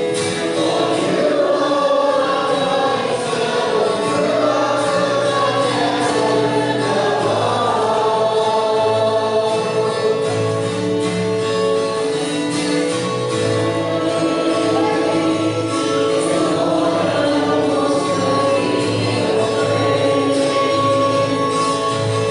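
Choir singing a Christian worship song over instrumental accompaniment with a steady bass line.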